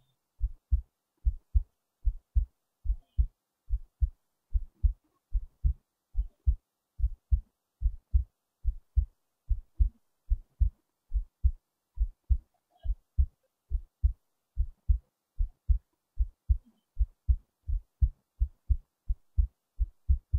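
A human heartbeat recorded close up: pairs of low lub-dub thumps in a steady, regular rhythm.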